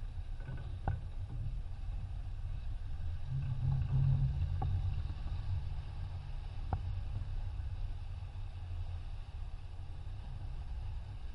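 A racing yacht under spinnaker, with a steady low rush of wind and water that swells briefly a few seconds in, and a few faint clicks.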